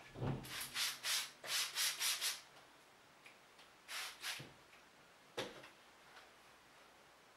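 Long hair rubbing and rustling as it is sectioned and wound onto heatless curling rods: a quick run of about six scratchy strokes, then a few more after a short pause.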